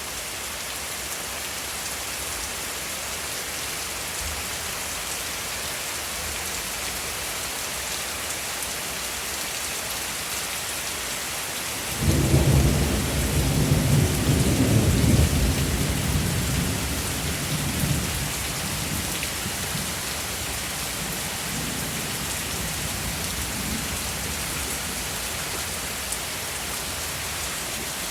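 Steady rain falling hard during a thunderstorm, with a sudden loud clap of thunder about twelve seconds in that dies away over the next six seconds or so.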